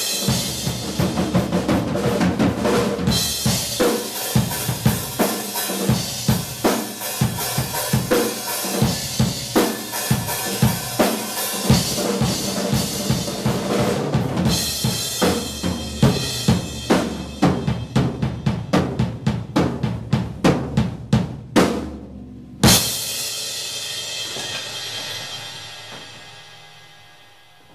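Drum-kit music: a steady kick and snare beat that speeds into a fast drum fill, then a single loud crash that rings out and fades away.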